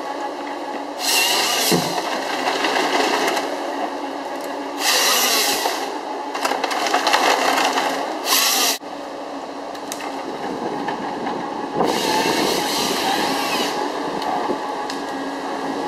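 Gremo 1050H forestry harvester at work: its engine and hydraulics run steadily while the harvester head feeds and processes a conifer log, with four louder, hissing surges of one to a few seconds as the head works the stem.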